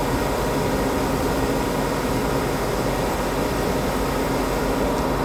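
CNC lathe running steadily as it turns a cone-shaped part, a constant mechanical noise with a steady whine.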